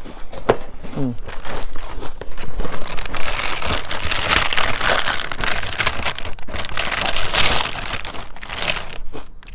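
Crinkling of a cereal box's plastic liner bag as a hand rummages in it. The rustling is loudest and most continuous from about three seconds in until near the end.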